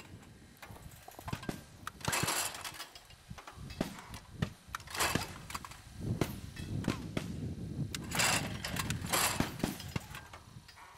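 Automatic clay trap machine loaded with carousels of clay targets working: a run of mechanical clicks and knocks with four louder noisy bursts as it throws, a few seconds apart.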